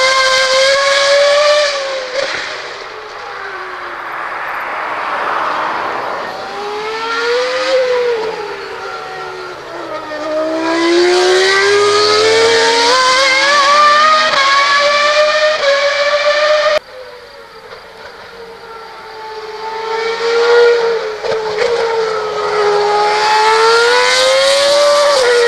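Formula One car engine running at high revs on track, its high-pitched note rising and falling again and again as it accelerates and lifts off. The sound fades down for several seconds, drops off abruptly about seventeen seconds in, then swells back to full.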